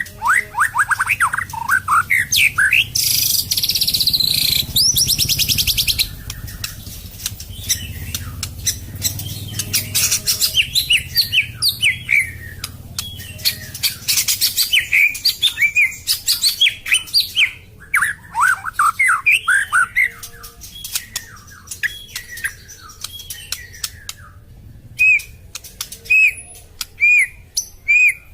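White-rumped shama (long-tailed murai batu) singing a fast run of varied whistled phrases, with a harsh, rapid rattling trill a few seconds in. Near the end it settles into one clear note repeated about once a second.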